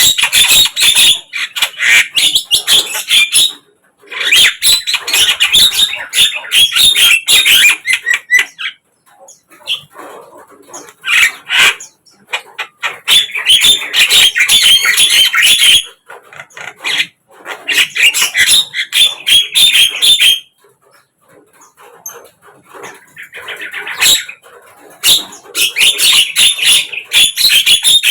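Javan myna (jalak kebo) singing a loud, dense, chattering song in phrases of a few seconds each, broken by short pauses.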